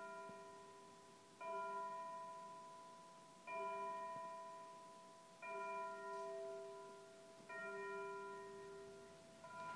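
Schulmerich Stelar electronic carillon tolling one bell note, struck five times at even intervals of about two seconds, each strike ringing and dying away before the next.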